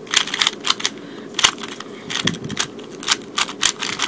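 Plastic 3x3 speed cube being turned quickly by hand: its layers make rapid, irregular clicks and clacks in quick runs with short pauses.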